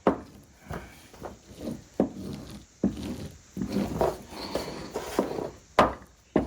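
Irregular sharp knocks and scrapes of hand tools on a veneered mahogany workpiece, about one or two a second, the loudest a little before the end.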